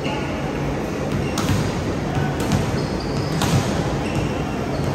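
A volleyball bouncing three times on a hardwood gym floor, about a second apart, echoing in the hall. A few short high squeaks come in between.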